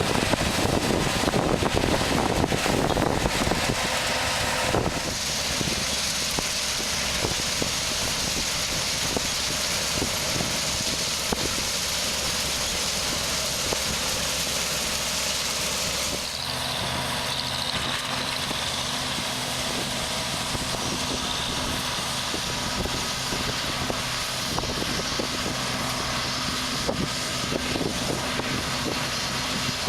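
Combine harvester running while harvesting soybeans: a steady engine with a loud hiss of machinery. The sound changes abruptly about five seconds in and again just past halfway, after which a steady low engine hum stands out.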